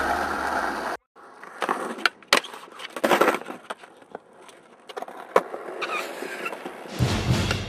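Skateboard wheels rolling on concrete, with several sharp clacks of the board against the ground. The sound cuts out for a moment about a second in, and a low rolling rumble picks up again near the end.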